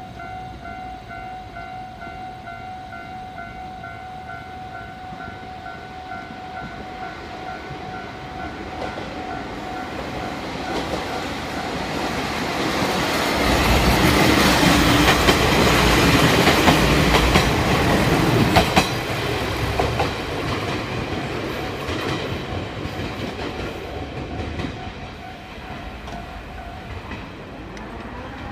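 Level-crossing alarm bells ringing steadily while a train passes over the crossing. The train's rumble and wheel clatter swell to a peak about halfway through, with a sharp clack of wheels on a rail joint, then fade away. The bells stop near the end.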